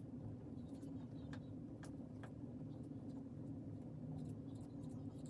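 A few faint, separate snips of small scissors over a steady low hum.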